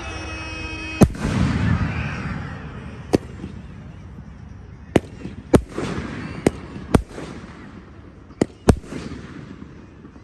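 Display fireworks bursting overhead: about eight sharp, irregularly spaced bangs, the first about a second in, each followed by a rumbling tail.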